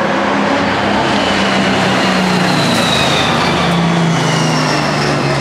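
Racing stock cars running on a short oval track: a loud, steady engine drone whose pitch sinks slowly a couple of seconds in, as a car goes past.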